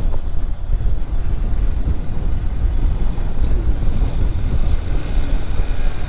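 Motorcycle on the move: loud, steady wind rumble on the microphone over the bike's running engine and road noise.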